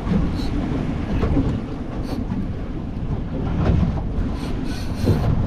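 Wind buffeting the microphone in a steady low rumble, over water splashing against a small boat's hull, with a few faint clicks about two seconds in and near the end.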